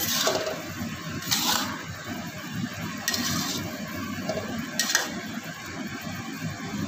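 Water spinach stir-fry bubbling in a wok full of cooking liquid, while a metal spatula stirs and scrapes against the wok several times.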